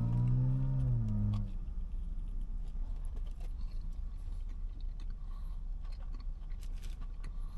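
A person biting into a fried-chicken sandwich and chewing with a full mouth, with a drawn-out, pitch-gliding "mmm" for the first second and a half, then soft wet chewing clicks over a steady low rumble.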